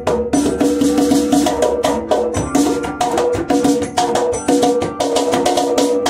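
Ashiko hand drum with a dark steerskin head played with bare hands in a quick rhythm of sharp strikes. A steel tongue drum plays a repeating melody of ringing notes with it.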